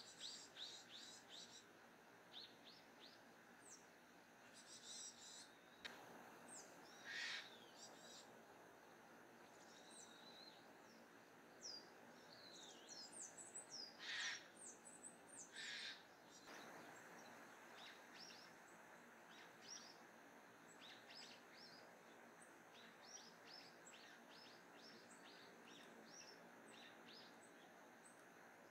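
Faint calls of small songbirds: runs of short, high, thin chirps throughout, with a few louder, longer calls near the middle.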